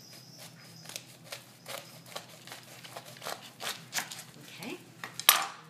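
Sharp knife cutting a pomegranate in half on a cutting board: a run of small crunching clicks as the blade works through the rind, with one louder knock about five seconds in.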